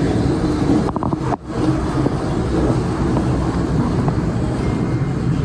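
Steady vehicle and traffic noise, with a brief break about a second and a half in.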